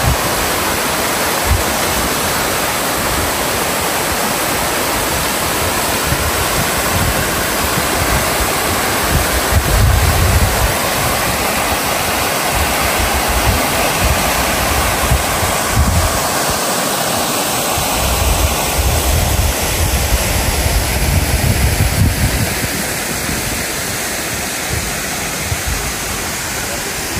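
Waterfall cascading, a loud, steady rush of falling water that eases off a little near the end.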